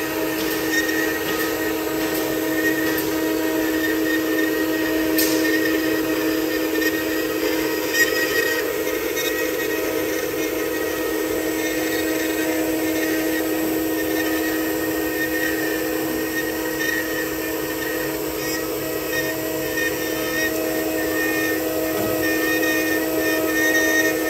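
Spindle of a 4-axis CNC wood router running at high speed while a fine carving bit cuts a wooden bust: a steady whine of held tones over cutting hiss, with a sharp tick about five seconds in and another about eight seconds in.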